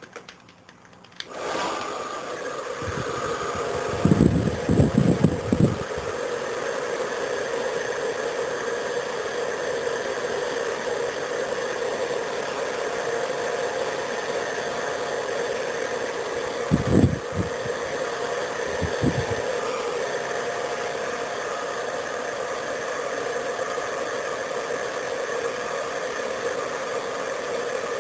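Hair dryer switched on about a second in and running steadily with a motor hum. There are a few low handling thumps a few seconds in and two more later on.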